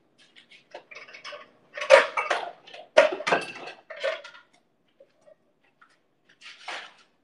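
Kitchen pots and utensils clattering as they are handled: a run of clinks and knocks, the two loudest about two and three seconds in, and another short clatter near the end.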